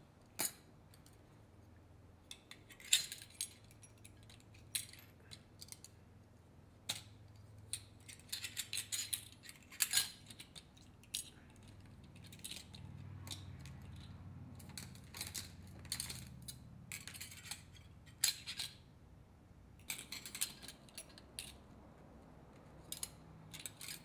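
Light metallic clinks and clicks, coming irregularly, as hard drive platters and spacer rings are slid back onto the spindle motor hub by hand. A faint steady low hum runs underneath.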